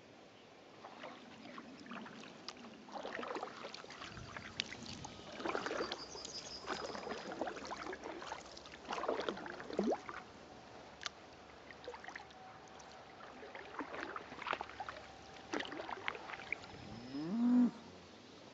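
Kayak paddle strokes splashing and dripping in the river at irregular intervals, then a cow mooing once near the end, the loudest sound here.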